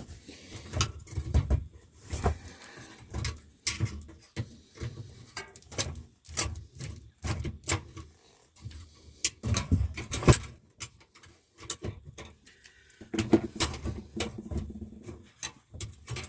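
Irregular small clicks, taps and knocks from hand work with a screwdriver on an old bathroom wall heater's screws and casing.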